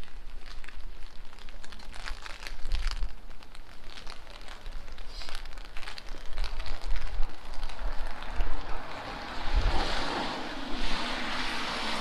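Rain falling on a wet street while gusts of wind buffet the microphone with low rumbles. Near the end, the hiss of a vehicle's tyres on the wet road swells up.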